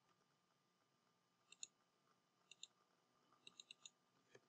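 Near silence broken by faint clicks from a computer mouse and keyboard being worked: two pairs of clicks about a second apart, then a quick run of four and a last click near the end.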